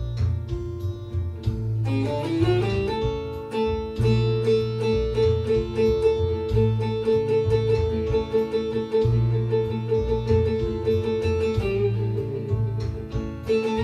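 Bağlama playing a hicaz improvisation: a rising slide about two seconds in leads onto a long held note sustained by rapid repeated picking, over a low bass accompaniment.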